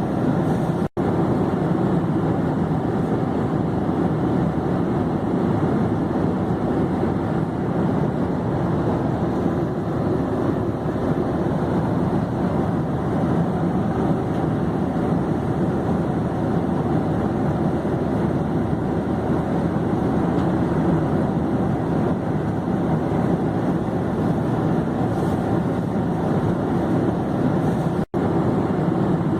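Airplane in flight: a steady, low rushing drone of engines and airflow, unchanging throughout, with two momentary dropouts, one about a second in and one near the end.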